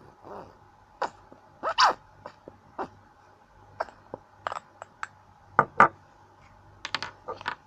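Hair conditioner squirting and spluttering from a squeezed plastic bottle into a container, in irregular short wet spurts, some with a quick falling squeak.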